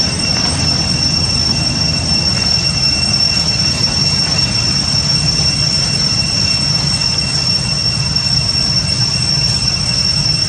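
Cicadas droning in a steady, high, even whine that never breaks, over a continuous low rumble.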